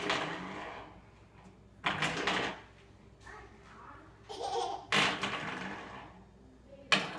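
Toddler laughing in several short bursts, a few seconds apart.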